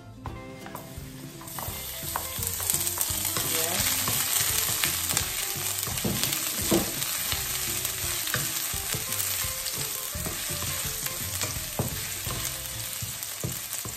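Chopped garlic frying in hot oil in a wok, a steady sizzle that starts about a second in as the garlic goes into the pan. A wooden spatula stirring it gives frequent light clicks and scrapes against the pan.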